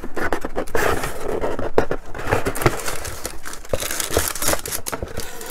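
Cardboard box being opened and its packing handled: cardboard flaps and paper rustling and scraping, with many small clicks and knocks as plastic model parts are lifted out.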